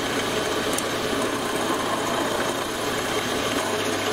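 Metal lathe running steadily, its collet chuck spinning while the tool bit turns down the end of an M10 threaded rod.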